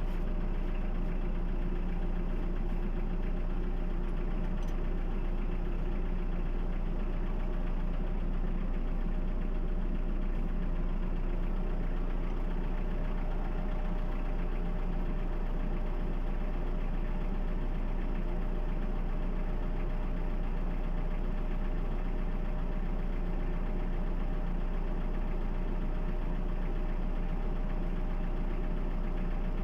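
Toyota 2C inline-four diesel engine idling steadily, with the even knock of a diesel at idle.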